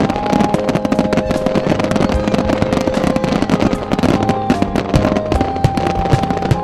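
Fireworks bursting in a dense barrage, a rapid run of crackles and pops. Music with long held notes plays at the same time.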